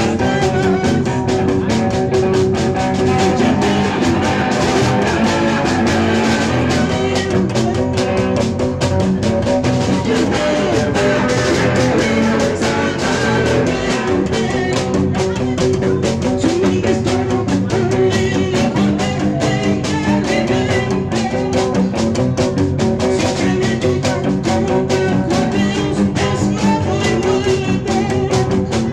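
Live rock-and-roll band playing: hollow-body electric guitar, upright double bass and drums played with sticks, at a steady even loudness.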